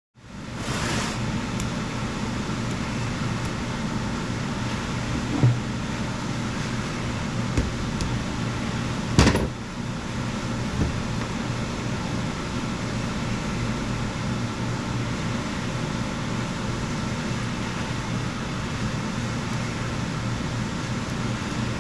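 A parts-cleaning machine running with a steady motor hum and a wash of noise. A few short knocks sound over it, the sharpest about nine seconds in.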